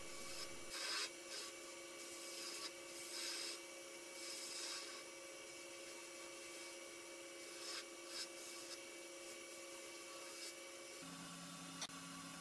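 Wood lathe running with a steady hum while a turning tool cuts a spinning wooden blank to shape a tapered, ogee-curved nose. The cutting comes as short scraping hisses, most of them in the first few seconds. Near the end the hum drops to a lower pitch and there is a single click.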